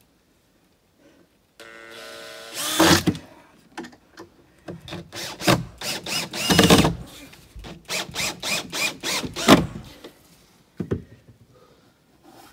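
Cordless drill driving 3-inch screws through the bottom of a wall frame into the floor joists: a short motor whine, then several loud bursts of driving as the screws bite in. A single knock near the end.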